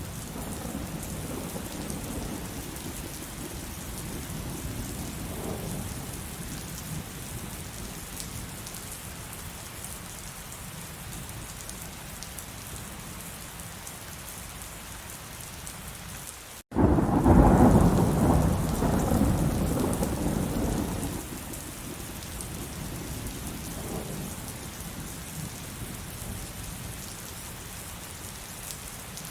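Heavy rain falling steadily, with thunder rumbling low in the first few seconds. After a split-second gap in the sound about 17 seconds in, a loud thunderclap rumbles for about four seconds, the loudest sound, then fades back to the rain.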